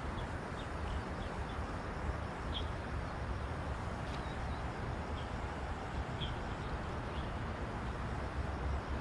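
Steady wind rumble on the microphone, with short bird chirps scattered through.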